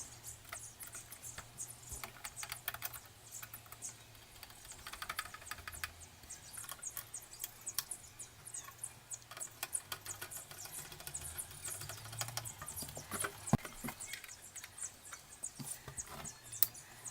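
Irregular run of light clicks and taps, with one sharper click a little after the middle.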